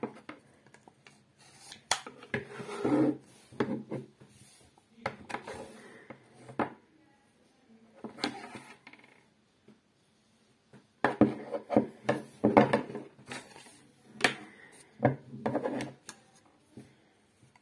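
Glock field knives and their polymer sheath being handled on a tabletop: irregular clicks, taps and scraping rubs of steel blades and plastic grips. The sounds come in several bursts with short pauses, the longest lasting about five seconds near the end.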